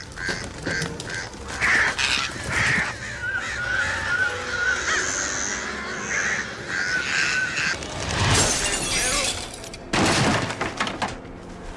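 Film soundtrack of crows cawing over and over in harsh, wavering calls. Two loud rushes of crashing noise follow, about eight and ten seconds in; the second cuts off suddenly a little after eleven seconds.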